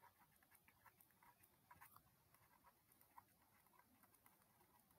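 Near silence: room tone with a few very faint ticks.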